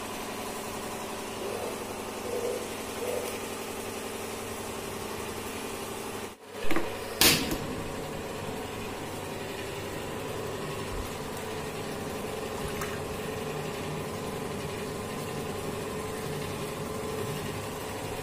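A steady mechanical hum, with two short knocks about seven seconds in.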